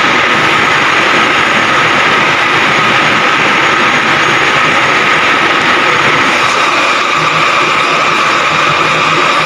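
A heavy engine running steadily and loudly, with a steady high whine over the rumble, from the machinery working the lifting sling that lowers the steel plates.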